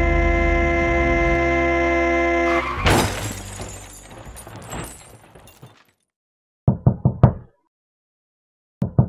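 A car horn sounds steadily, then cuts off about two and a half seconds in with a crash and breaking glass that dies away over a few seconds. After a silence comes a quick run of four knocks, and near the end sharp clicking begins.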